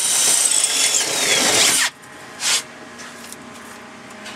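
Cordless drill boring through the metal rear door bracket. It runs at full speed, its whine falls in pitch, and it stops abruptly about two seconds in. A brief burst of noise follows about half a second later.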